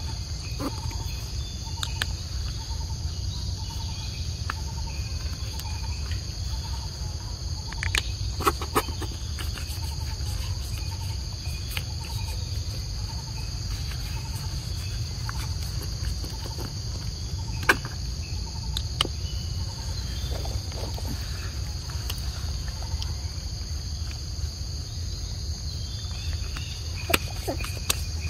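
Steady high-pitched insect chorus of crickets or cicadas over a low background rumble, with a soft repeated chirp for the first third and a few scattered sharp clicks and rustles.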